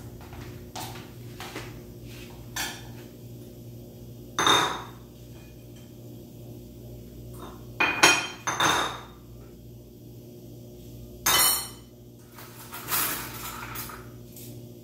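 Dishes and cutlery clinking and knocking as they are handled and set down. Scattered strikes, some with a short ring, the loudest about four and a half, eight and eleven seconds in.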